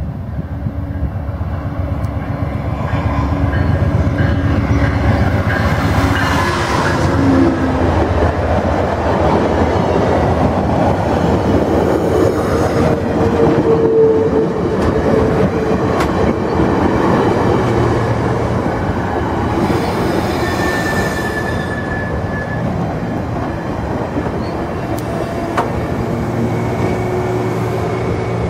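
VIA Rail passenger train arriving: the diesel locomotive draws near and goes by, loudening over the first few seconds, then a line of stainless-steel passenger cars rolls past, wheels clicking over the rail joints. A few brief metallic squeals come in along the way, one higher-pitched about two-thirds of the way through.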